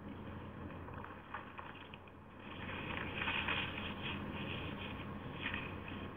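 Steady hum and hiss of a low-quality recording, with scratchy rustling noises about midway and again near the end.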